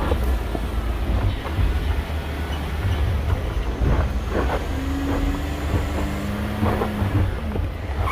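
4x4 vehicle driving slowly over a rough off-road trail: a steady low rumble with frequent knocks and rattles from the vehicle body and suspension, and a brief steady hum about halfway through.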